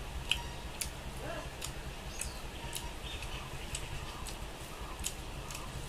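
Eating by hand: fingers mixing rice and curry in a steel plate, and chewing, giving a string of irregular sharp clicks and smacks over a low steady hum.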